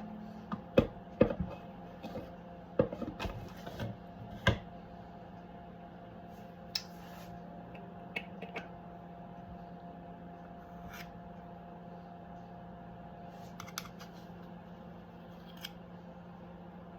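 A steady appliance hum in a kitchen, with a run of sharp clicks and knocks from handling baking things in the first few seconds and a few scattered clicks after.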